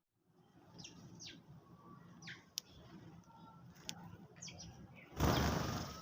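Sparrows chirping while feeding: several short falling chirps and a couple of sharp ticks, then a loud rush of noise near the end.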